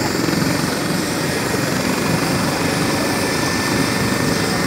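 Eurocopter EC135 twin-turbine helicopter running on the ground with its main rotor turning: a steady, loud rush of turbine and rotor noise with a fast, even blade chop.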